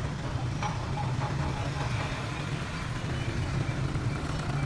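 City street traffic: cars driving past, a steady low rumble of engines and tyre noise.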